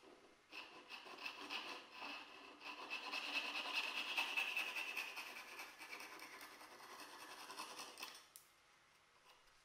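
Japanese pull saw cutting a small wooden dowel peg flush with the surface, in rapid short strokes that start about half a second in and stop about eight seconds in.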